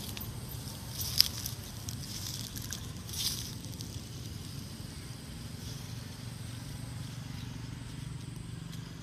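Dry leaf litter crackling and rustling a few times under a long-tailed macaque's movements, sharpest about one second and three seconds in, over a steady low background hum.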